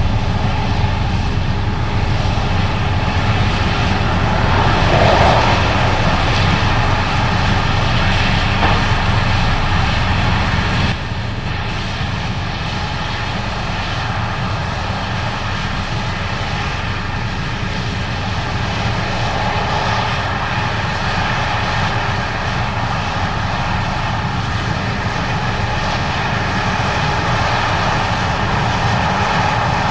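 Case IH 8250 Axial-Flow combine running steadily while harvesting corn: a constant diesel engine drone mixed with the noise of the threshing machinery, dropping slightly in level about eleven seconds in.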